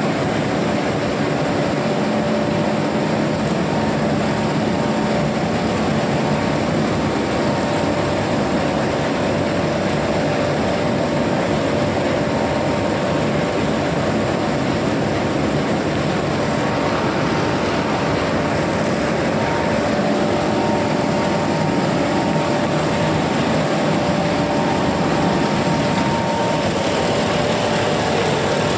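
Soya-chunk plant machinery running: electric-motor-driven screw conveyors and a mixer give a steady, unbroken drone, a few steady hum tones over even noise.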